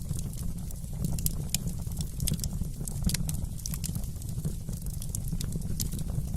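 Wood fire in a fireplace crackling: frequent, irregular sharp pops and snaps over a steady low rumble of the flames.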